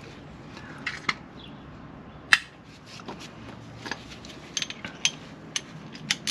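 Irregular metallic clinks of a socket wrench and socket working the nuts and bolts of a Land Rover's steel engine undershield, with a quick run of clicks about two-thirds of the way through.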